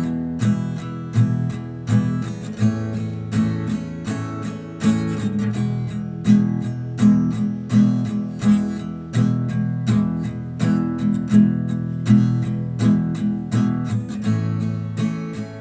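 Instrumental music: an acoustic guitar strummed in a steady, even rhythm.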